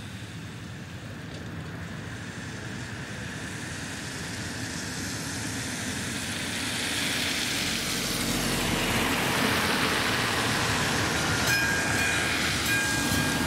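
Car tyres hissing on wet asphalt, swelling as a car drives over the level crossing about halfway through. About two seconds before the end, the crossing's warning bell starts ringing with rapid repeated strikes as the red lights come on.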